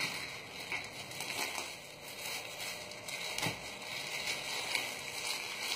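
Plastic packaging crinkling and rustling as vacuum-packed, plastic-wrapped clothes are pulled from a plastic shipping bag, with scattered light crackles and a soft knock about three and a half seconds in.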